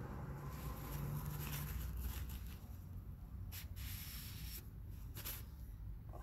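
Faint rubbing and handling noise at close range, with a few short scrapes about three and a half and five seconds in, as the oil fill cap and dipstick are worked by hand.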